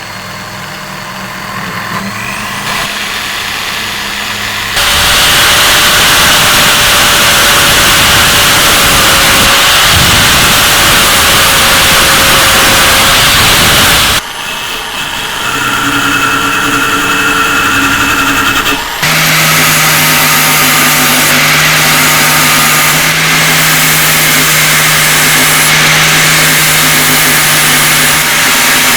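Electric power tool motor running at speed and working the metal of rusty pruning shears, the noise changing abruptly between sections about 5, 14 and 19 seconds in.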